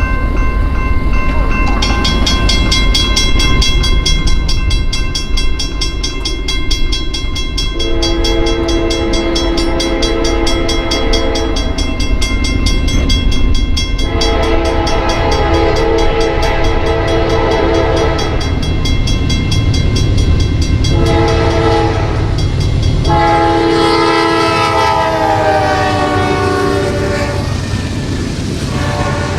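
Freight locomotive horn sounding the grade-crossing signal, two long blasts, a short one and a long one, its chord dropping in pitch on the last blast as the locomotive passes. Under it the steady rumble of the passing train.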